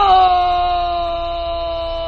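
Male pansori singer holding one long sung note, scooping up into it just before and then sustaining it at a steady pitch as it slowly fades a little, with a steady low hum beneath.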